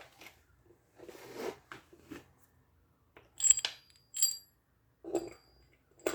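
Parts of a fan being handled and fitted together during assembly: scattered short knocks and clicks, with two sharp metallic clinks that ring briefly about three and a half and four seconds in.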